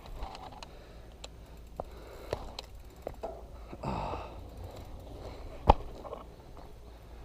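A crashed mountain biker breathing hard and letting out a long sigh or groan about four seconds in, among scattered knocks and rustles of gear and brush. A single sharp knock toward the end is the loudest sound, over a low rumble of wind on the microphone.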